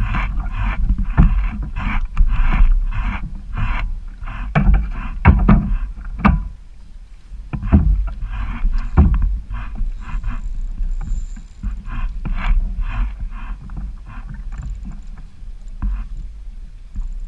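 Kayak on choppy water: water splashing and slapping against the hull several times a second, over a steady wind rumble on the microphone, with a few sharper knocks against the boat.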